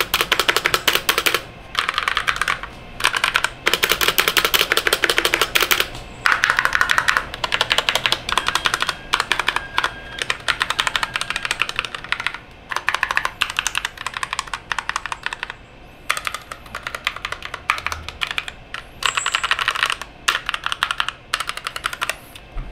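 In-Play wired mechanical keyboard being typed on: fast runs of key clacks in bursts of one to two seconds, with short pauses between runs.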